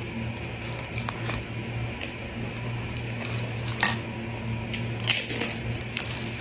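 Close-miked eating sounds: wet chewing with a handful of irregular sharp crunches or clicks, the loudest cluster about five seconds in, over a steady low hum.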